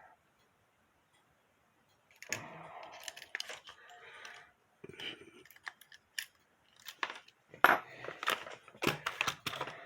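Small metallic clicks, taps and scraping as a tool pries a gear out of a music box's brass mechanism. They begin about two seconds in and come irregularly, with a sharper click late on.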